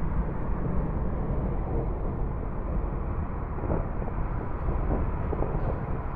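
Approaching thunderstorm: a steady low rumble of distant thunder, with a few faint crackles in the second half.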